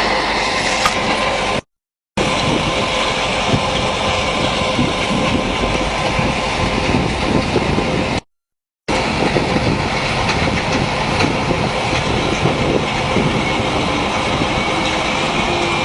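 Sand screening and washing plant running: a loud, steady mechanical rattle of sand and stones with a motor hum under it. The sound cuts out completely twice for about half a second.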